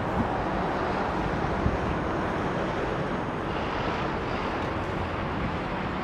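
Steady outdoor background noise, a low rumbling haze with wind buffeting the microphone.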